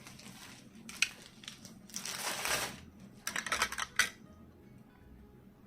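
Items being handled and unwrapped: short bursts of crinkling packaging with a couple of sharp clicks, about a second in and again about four seconds in.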